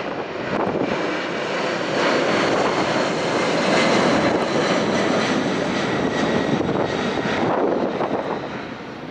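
Jet engines of a Boeing 747-400 freighter running loud and steady, a rushing noise that eases off about eight seconds in.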